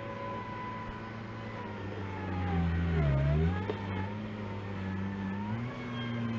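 Engine of a machine moving dirt running steadily, its pitch dipping briefly about three seconds in and then climbing back, as under a load.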